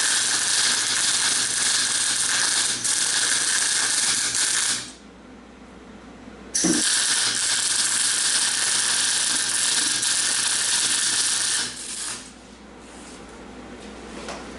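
MIG welding with a Thermal Arc welder: the arc crackling and hissing steadily through two beads of about five seconds each, with a short pause between them and a sharp strike as the second bead starts.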